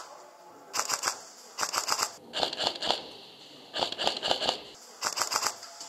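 Airsoft rifles firing in five short bursts of rapid clicking shots, about half a second each, spread across the few seconds.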